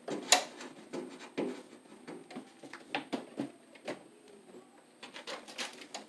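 Scattered light clicks and taps of hands working a red electrical cable into place along the side of a breaker panel, the sharpest click near the start.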